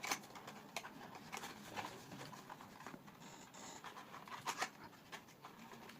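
Faint rustling and scattered light clicks of packaging being handled as accessories are taken out of a keyboard box.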